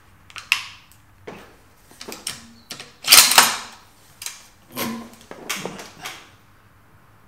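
Metallic clicks and clacks of a Savage 110 Storm bolt-action rifle being loaded: the magazine is eased in and seated, then the bolt is worked to chamber a round, the loudest clatter about three seconds in. A few lighter knocks follow as the rifle is settled, then it goes quiet.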